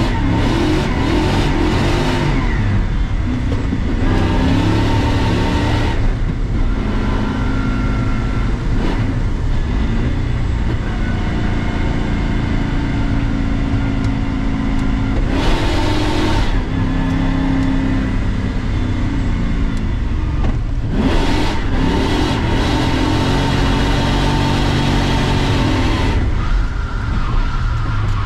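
V8 engine of a BMW E36, heard from inside the cabin, revving up and easing off again and again as the car is driven hard.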